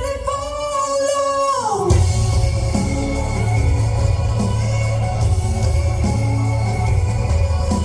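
A pop-rock song with a singer's voice and band: a held sung note slides down and ends about two seconds in, then the band carries on with a strong bass line under guitar.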